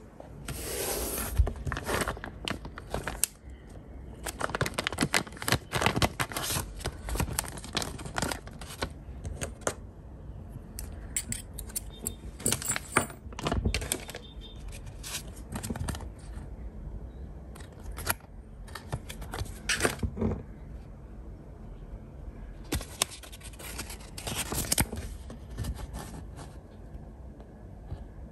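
Hands handling printed paper cards and leaflets on a tabletop: rustling, sliding and light taps as they are laid down and picked up. The sounds come in several irregular bursts with short pauses between them.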